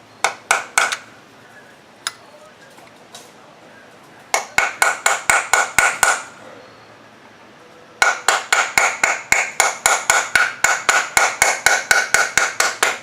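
Hammer striking a metal tool against the old transmission front (torque converter) seal, trying to collapse it to get it out. The metallic blows ring: three at first, then a run of about nine, then a steady run at about five blows a second.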